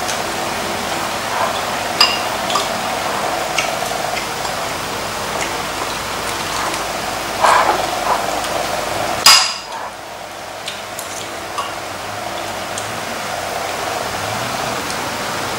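Spoons and chopsticks clinking against bowls, plates and a metal pan during a meal: scattered light clinks, with the sharpest two near the middle, over a steady background hum.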